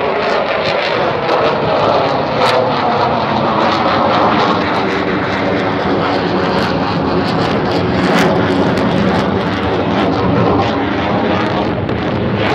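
Avro Vulcan bomber's four Rolls-Royce Olympus turbojets, a loud continuous jet roar with crackle as the aircraft climbs away; a tone in the roar falls in pitch over the first two seconds as it passes.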